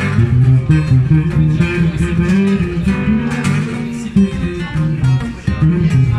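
Acoustic and electric guitar playing live together: an instrumental passage of strummed chords over low, moving bass notes, with no singing.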